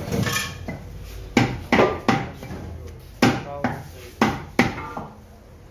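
Butcher's knife chopping beef on a wooden log chopping block: about eight sharp chops, mostly in quick pairs, starting about a second in.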